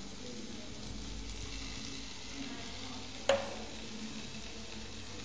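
Food sizzling steadily while being cooked, with one sharp clink, like a utensil striking the cookware, a little over three seconds in.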